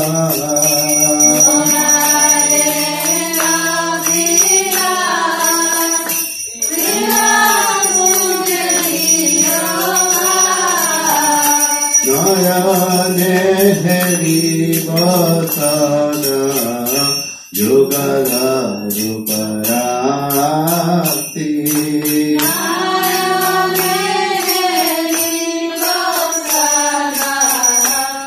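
Group of women singing a Hindu devotional song together in long phrases, with brief pauses between lines, while a small hand bell rings steadily alongside.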